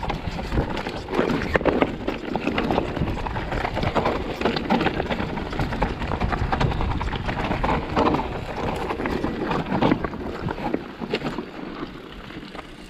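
Electric mountain bike rolling over a rough, rocky trail: tyres crunching on stones with irregular knocks and rattles from the bike, and wind on the microphone.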